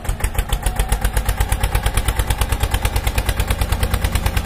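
Engine sound effect of a tractor idling: a steady, regular putt-putt of about nine beats a second. It is a recorded track that starts and stops abruptly out of silence, not a sound from the toy being pushed.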